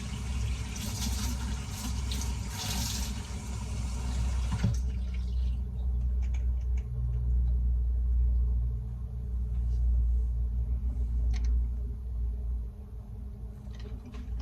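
Water running from a kitchen tap into the sink for about five seconds, then shut off abruptly, followed by a low steady rumble with a few faint clicks.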